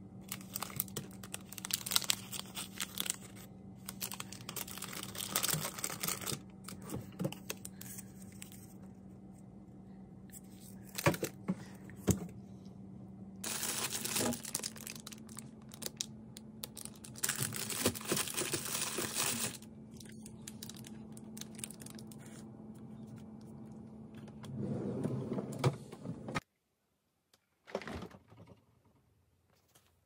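Plastic food packaging crinkling and rustling as packs of snacks and wrapped carrots are handled in a refrigerator's vegetable drawer, in uneven bursts over a steady low hum. The sound cuts off suddenly near the end.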